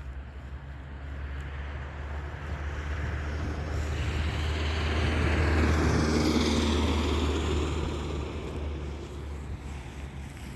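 A vehicle passing by: a rushing noise that swells to a peak about six seconds in and then fades, its pitch falling as it goes past, over a steady low hum.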